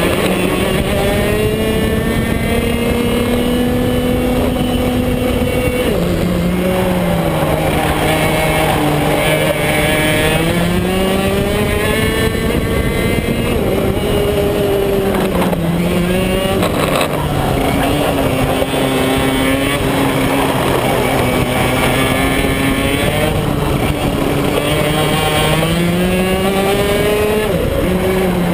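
Onboard sound of a BMB KF2 125 cc single-cylinder two-stroke kart engine at racing speed. Its pitch climbs steadily as the kart accelerates and drops sharply under braking, about three times (near 6 s, 16 s and near the end).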